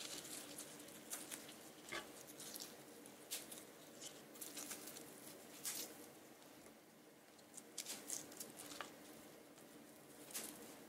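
Fresh basil leaves rustling and softly tapping as they are picked apart and laid on a wooden cutting board: faint, irregular little clicks and crinkles over a steady low room hum.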